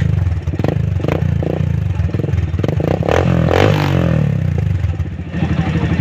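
Suzuki GS 150's single-cylinder four-stroke engine running through an aftermarket Akrapovič-style silencer, with sharp pops and clatter at idle and one throttle blip, the pitch rising and falling about three seconds in.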